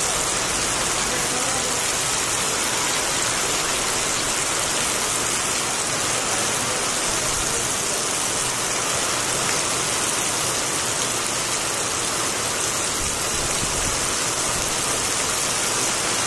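Heavy rain falling steadily on wet ground and puddles: an even, unbroken hiss.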